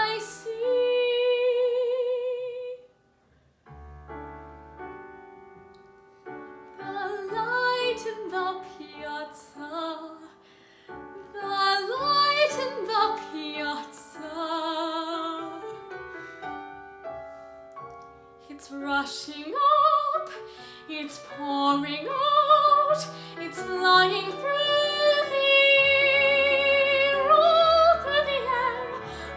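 A woman's solo singing voice with vibrato over piano accompaniment. She holds a long note at the start, there is a brief pause about three seconds in, and then the song carries on.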